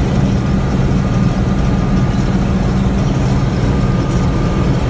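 Massey Ferguson 750 combine with its 354 engine running steadily while harvesting soybeans, a constant low drone with the threshing cylinder turning hard.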